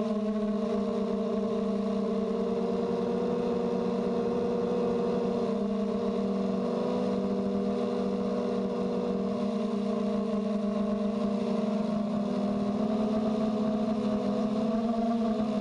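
Blade 200QX quadcopter's brushless motors and propellers buzzing steadily in flight, heard from the GoPro mounted on the copter. The pitch wavers slightly as it manoeuvres, while it carries a GoPro that is a little heavy for it.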